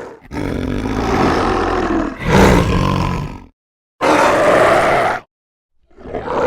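Demon roar sound effects: a long rough roar of about three seconds that swells louder near its end, then two shorter roars, each after a brief silence.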